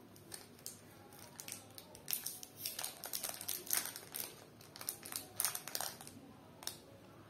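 Foil-lined wrapper of a Cadbury 5 Star chocolate bar crinkling in quick, irregular crackles as it is torn open and peeled off the bar by hand.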